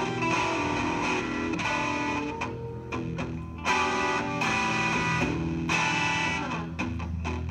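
Electric guitar and bass guitar playing an instrumental passage of held notes over a steady low bass line, with a sharp, louder struck note about three and a half seconds in.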